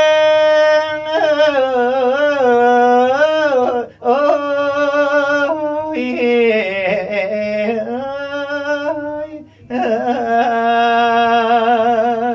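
A man singing Thai lae in long drawn-out notes with wavering, bending pitch and no clear words, in three long phrases with brief breaths about four and nine and a half seconds in.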